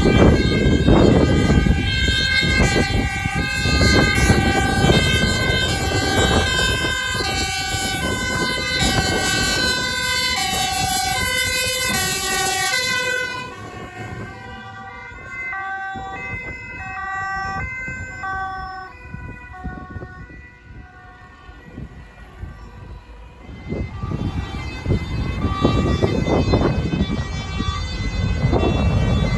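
Dutch fire engine's two-tone siren, alternating high and low about twice a second, loud as it approaches. It drops in pitch and fades as it passes, about halfway through. Near the end the engine and tyre noise of passing traffic rises, with a siren faintly heard.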